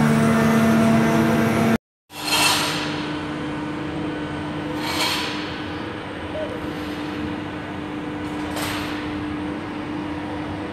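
Steady drone of the Grand Éléphant mechanical elephant's engine, broken by an abrupt cut about two seconds in. After the cut it runs on as a steady hum with three short hisses spread through the rest.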